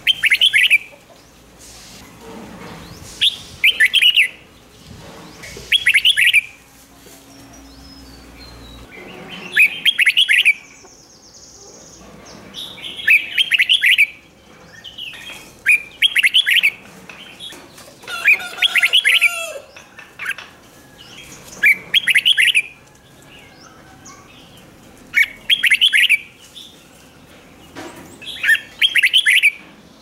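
Red-whiskered bulbul singing short, bright warbled phrases, one every two to four seconds, about ten in all.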